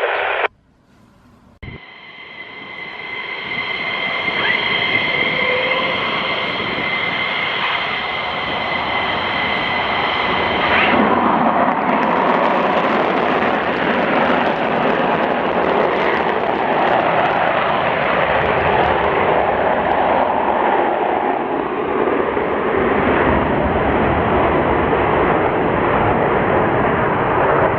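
F-15 fighter jet engines: a high whine that grows louder over about nine seconds, then turns about eleven seconds in to a loud, steady roar that lasts to the end.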